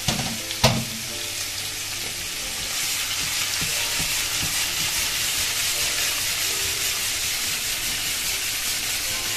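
Saffron milk caps and garlic sizzling as they fry in olive oil in a pan, with two sharp knocks in the first second. The sizzle grows louder about three seconds in and then holds steady.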